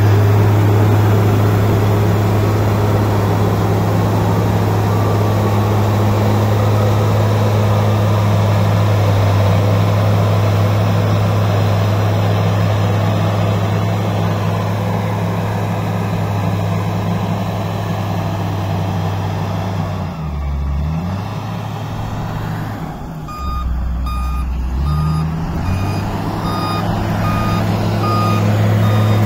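Wheel loader's diesel engine running hard at steady high revs while it pushes soil. About twenty seconds in, the revs drop and pick up again as it changes direction, and its reversing alarm gives short, regular beeps, about one and a half a second, near the end.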